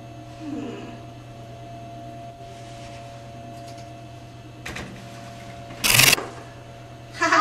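A steady low hum runs underneath, and about six seconds in comes a single sharp slap on the wooden tabletop.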